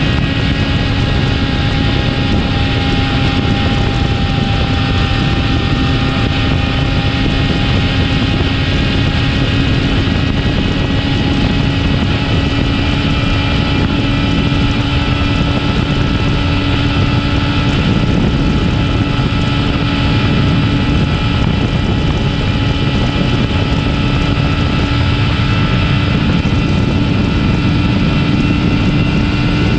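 Yamaha R6's 600 cc inline-four engine on its stock exhaust, running steadily at a held speed, its pitch creeping slowly upward.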